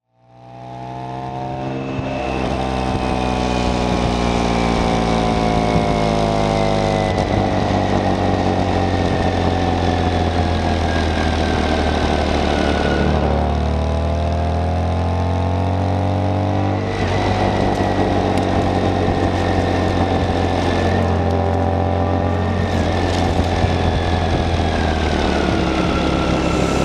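BMW K1600 GTL motorcycle's inline-six engine running while the bike is ridden, its pitch drifting slowly up and down. It fades in over the first two seconds.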